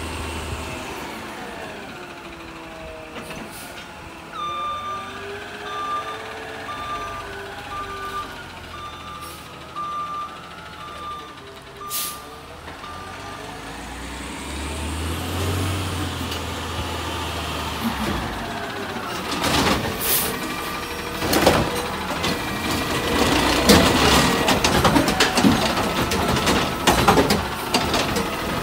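CNG Peterbilt 520 garbage truck with a McNeilus ZR side-loader body, its natural-gas engine running as it manoeuvres. Its reversing alarm beeps about once a second for roughly ten beeps. Later come air brake hisses and a louder, busier stretch of engine and brake noise as the truck pulls up.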